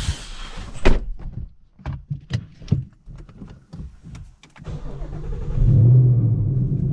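A loud thump about a second in and a run of clicks and knocks, then the 2018 Mustang GT's 5.0-litre Coyote V8 starts about four and a half seconds in and settles into a steady idle.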